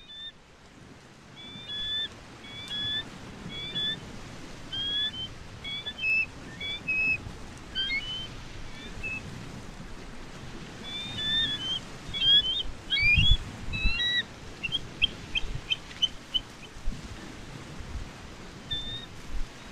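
Birds calling in short, high chirping notes, repeated irregularly, with a quicker run of notes about three quarters of the way through, over a low background rumble.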